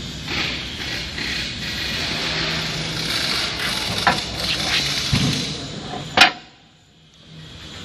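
Handling noise from a shoe heating platen of a heat press being moved and fitted by hand onto its metal bracket: rustling and scraping with a few knocks, and one sharp click about six seconds in.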